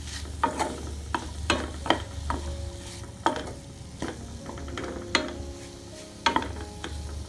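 A utensil stirring and scraping liver, onion and capsicum around a hot frying pan, with irregular knocks against the pan about once or twice a second, while the food sizzles.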